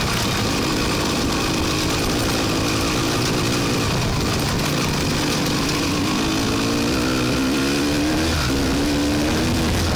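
Off-road vehicle engine running under throttle along a rough dirt trail, mixed with a steady rushing noise; from about six seconds in a wavering engine note rises and falls more clearly.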